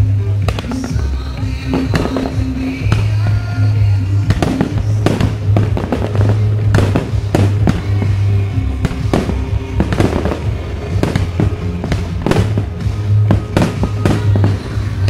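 Aerial fireworks shells bursting one after another, sharp bangs and crackles coming thick and fast from about four seconds in, over loud music with a strong bass.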